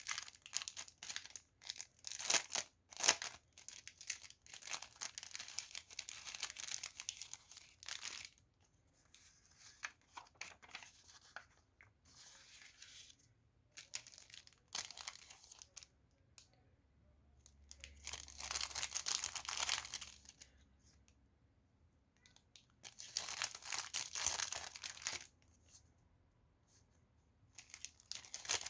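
Packaging being torn open and crinkled by hand, in several spells of a few seconds each with short pauses between; the longest spell, at the start, has many sharp crackles.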